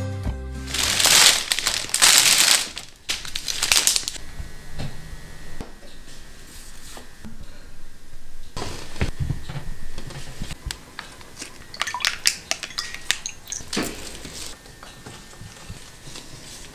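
Rustling and crinkling of things being handled, with two loud rushes of rustling in the first few seconds, then softer rustles and scattered light taps and clicks.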